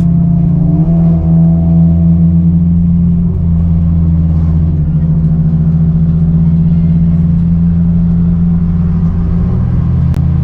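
Car engine and exhaust droning steadily at road speed, rising briefly in pitch under throttle about a second in and again near the end.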